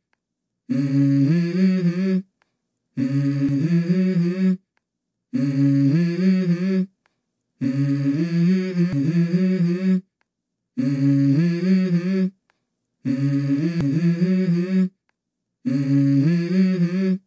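A short hummed vocal phrase looped over and over, seven times, each about a second and a half long with a brief dead silence between repeats. The hum steps between a few low notes.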